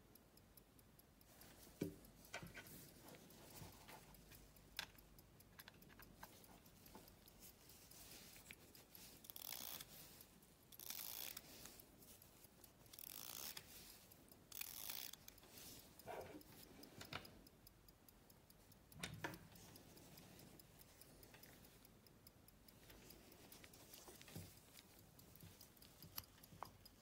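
Faint, rapid ticking of an antique silver pocket watch's running movement, with small clicks and rustling from gloved hands opening its hinged glass bezel and handling the case.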